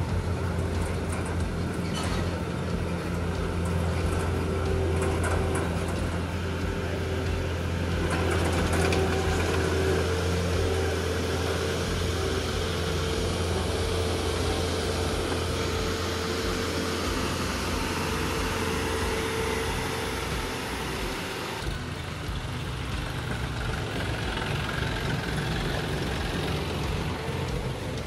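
Combine harvester running steadily: a deep diesel engine hum under a constant whirring machinery noise. About three-quarters of the way through, the deep hum weakens and the sound shifts.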